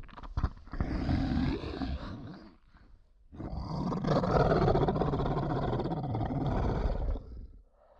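Two animal roars: a shorter one about a second in, and a longer one of about four seconds starting about three seconds in, after a few short clicks at the start.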